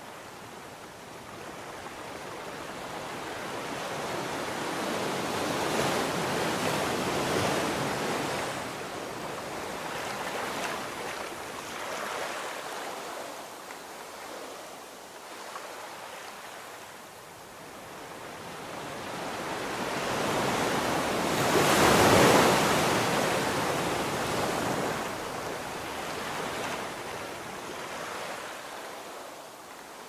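Ocean surf breaking and washing up a sandy beach: rushing noise that swells and ebbs twice, with the louder wave cresting about two-thirds of the way through before the wash fades.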